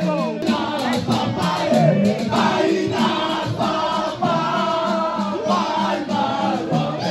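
A group of men singing together in chorus, a traditional Mahoran manzaraka wedding procession song.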